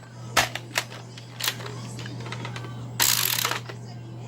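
Plastic clicks and clacks of a Nerf blaster's mechanism being handled and worked, with a sharp half-second burst of noise about three seconds in. A steady low hum runs underneath.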